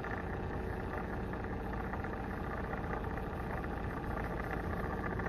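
Steady hum of a cup turner's small electric motor, slowly rotating the piece.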